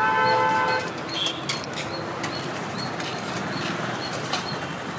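Street traffic noise with a vehicle horn honking for under a second at the start, then a steady hum of traffic with a few light knocks.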